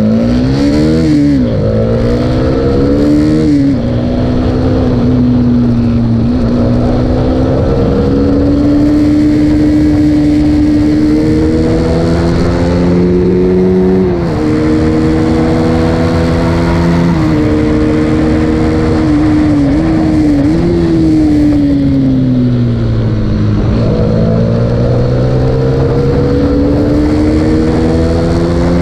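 Honda CBR125R's single-cylinder four-stroke engine at race pace, heard onboard. It revs up and drops in pitch suddenly at each upshift, falls steadily for a few seconds past the middle as the rider slows, then climbs again near the end, with wind noise over the microphone.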